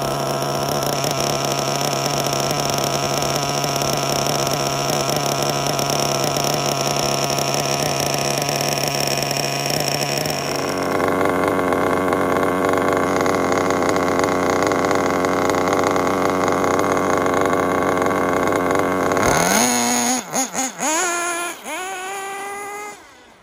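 Kyosho MP9 TKI4 nitro buggy's small glow engine idling steadily, then revving up hard about nineteen seconds in as the buggy pulls away, its note rising and falling and fading into the distance near the end. The engine is new and still tuned rich.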